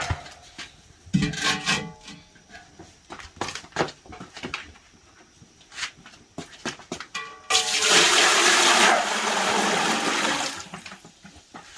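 Water pouring or gushing in a steady rush for about three seconds, starting a little past the middle, after a run of light clicks and knocks.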